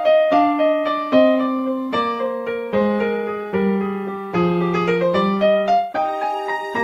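Background piano music: a slow melody of single notes and chords, each struck and left to fade, a new one a little under once a second.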